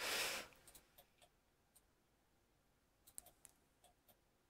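A short rush of breath into the microphone, then faint scattered clicks of a computer mouse and keyboard, a few near the start and a cluster about three seconds in.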